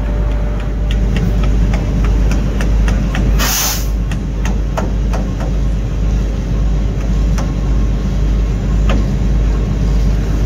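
A steady low rumble of heavy machinery running, with scattered light metallic clicks and knocks. A short, loud hiss comes about three and a half seconds in.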